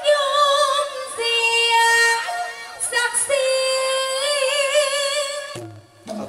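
A woman singing Thai likay-style through a microphone and PA: long, drawn-out melismatic phrases on held high notes with wide vibrato, with a short break about three seconds in, and the phrase ending near the end.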